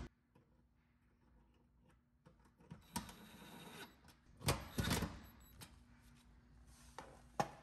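A few scattered clicks and knocks of sheet metal and a tool being handled as the range's galvanised back panel is fastened in place, with the loudest knocks about halfway through and one near the end.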